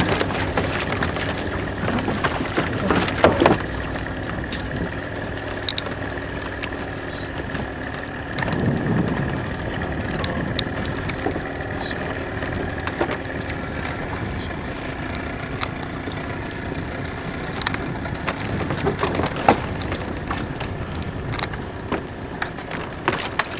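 Wooden oars and a wooden rowing boat knocking and creaking with scattered sharp clicks and one louder low rumble about nine seconds in, over steady wind and water noise.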